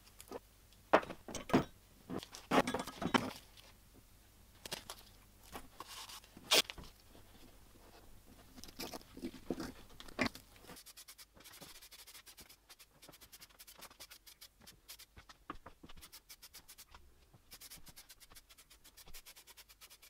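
Blue masking tape being pulled off a roll and torn, with light knocks and clinks as small cast-iron coffee grinder parts are handled and set down on a wooden bench. About halfway through these give way to a fast, even run of faint clicks.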